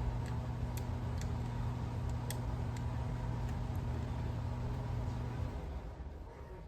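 A steady mechanical hum with a few light clicks over it, stopping about five and a half seconds in.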